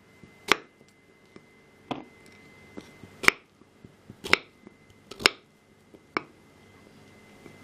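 Knife chopping raw green mango on a wooden chopping board: about six sharp knocks, roughly one a second.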